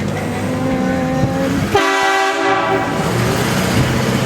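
Air train horn blasting from a vehicle. About two seconds in it switches abruptly to a fuller, many-toned chord that dies away a second later.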